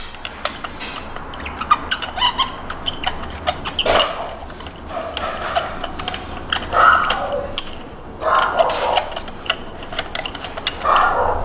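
Ratchet wrench clicking in irregular runs as a spark plug is unscrewed from the engine through a socket on a long extension, with a few short scraping rasps.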